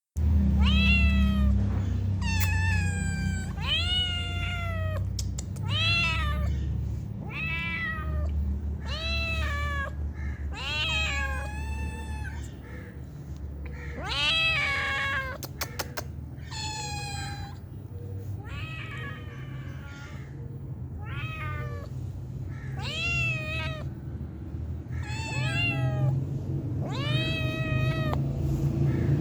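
Kittens meowing over and over, short high-pitched meows roughly every one to two seconds, each rising and then falling a little in pitch. A steady low hum runs underneath.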